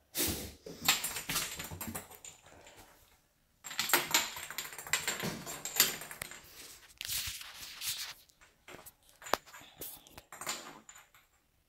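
A small toy clattering and skittering across a hardwood floor as a cat bats and chases it, in bursts of rapid clicking and scraping, thinning to a few sharp clicks near the end.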